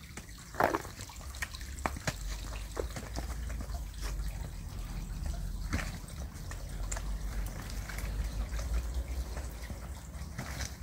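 Footsteps, walking poles and a two-wheeled pull trolley going down a dirt forest path: scattered scuffs and sharp clicks, the loudest about a second in, over a steady low rumble.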